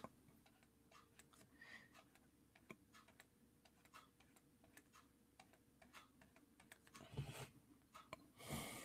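Near silence with faint, irregular clicks, and two brief soft scratchy sounds near the end.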